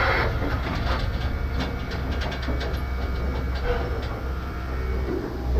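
Train running slowly along the rails: a steady low rumble with a run of light clicks from the wheels on the track.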